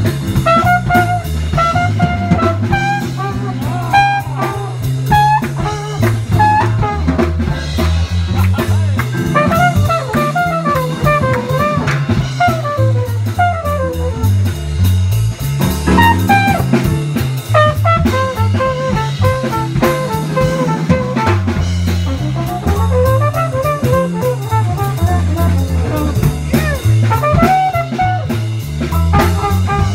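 Live swing jazz: a flugelhorn solo of quick runs up and down, over a rhythm section with a drum kit and a low line changing note about twice a second.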